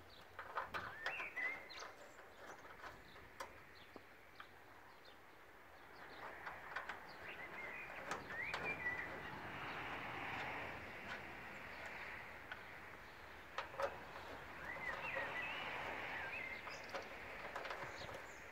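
Birds chirping in short bursts, with scattered small clicks and taps from hands working at the car's front grille and its screws.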